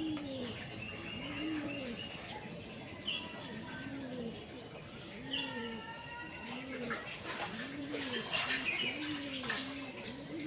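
A dove cooing over and over, a low soft note about once a second. Small birds chirp higher up, with a whistled call about halfway through and some short scratchy notes in the second half.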